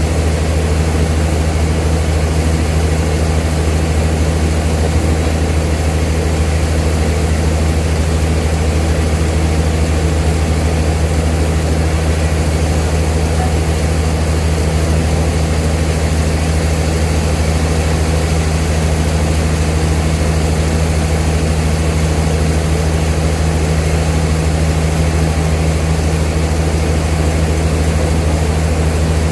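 Old sawmill machinery running with a loud, steady low hum that does not change.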